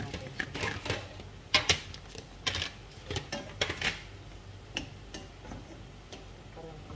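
Wooden spoon stirring and tossing vegetables and chicken in a non-stick frying pan: irregular knocks and scrapes against the pan, loudest about a second and a half in and thinning out in the second half.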